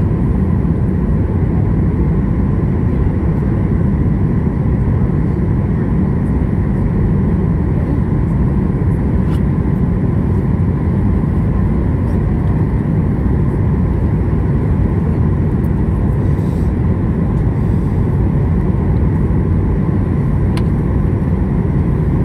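Steady cabin noise inside a Boeing 737 MAX 8 in flight on descent: the even, low rush of airflow and CFM LEAP-1B engines, with a faint high steady whine above it.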